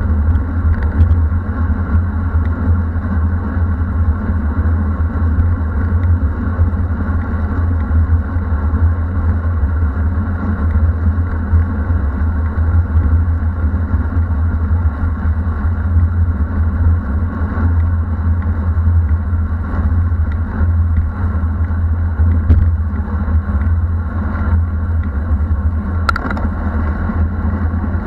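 Loud, steady wind rumble on a bike-mounted Garmin VIRB action camera's microphone as the road bike rides at speed into a strong headwind, with one short click near the end.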